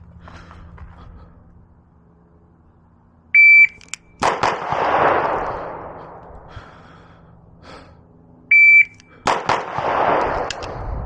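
A shot timer sounds its short, high start beep twice. Each beep is followed about a second later by a pistol shot with a long echoing tail, the pattern of drawing and firing on the timer's start signal.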